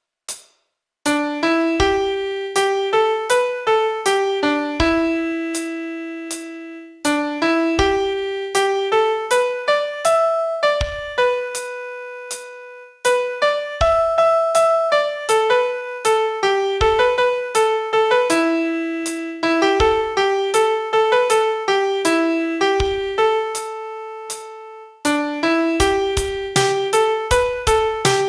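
Piano playing a song melody one note at a time, in phrases of several seconds separated by brief pauses, each phrase opening with a low bass note.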